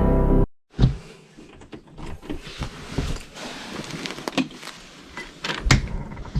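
Electronic intro music cuts off about half a second in; then scattered light knocks and clicks over a faint hiss.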